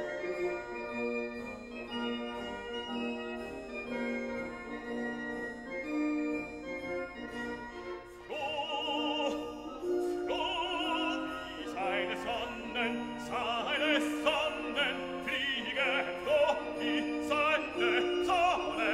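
Background classical music: held instrumental chords at first, then an operatic singing voice with strong vibrato comes in about eight seconds in.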